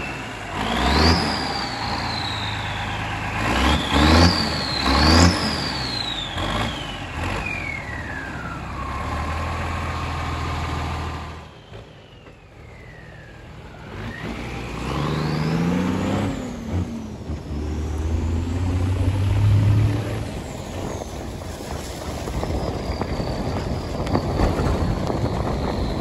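M35 deuce-and-a-half army truck's multi-fuel engine running on the move, its revs climbing and falling again and again as it pulls through the gears, with a whine that rises and falls with engine speed. It drops quieter for about two seconds near the middle, then pulls up again.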